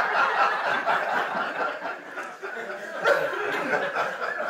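Audience laughing in response to a joke's punchline, the laughter dying down and then swelling again about three seconds in.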